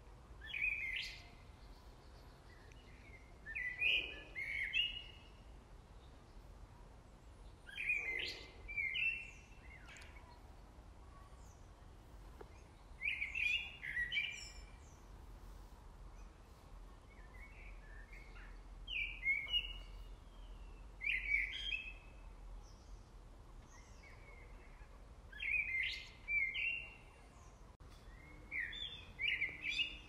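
A songbird singing short phrases of several quick high notes, each about a second long, repeated every few seconds, about eight times in all.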